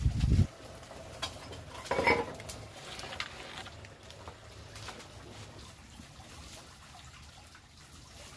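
Bundle of dry kindling sticks catching fire in a wood-fired stove: scattered crackles and snaps, a small cluster about two seconds in, then sparser. A brief low rumble at the very start.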